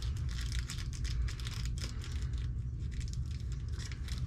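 Rustling and light irregular clicking of small parts and packaging being handled on a workbench, over a steady low hum.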